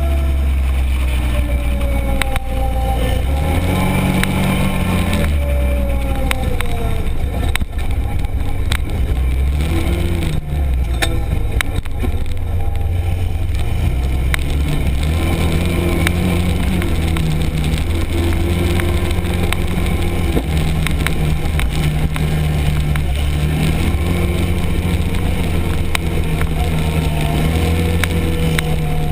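Arctic Cat Prowler 1000 UTV's V-twin engine running under changing throttle, its pitch rising and falling, with scattered sharp clicks and knocks.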